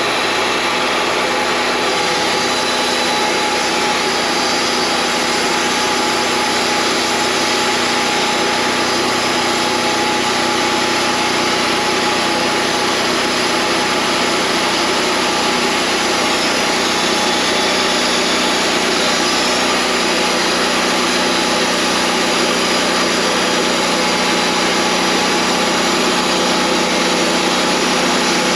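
Wood-Mizer LT40 portable bandsaw mill running steadily, its engine holding one constant pitch under a dense, even noise, with no pauses or changes.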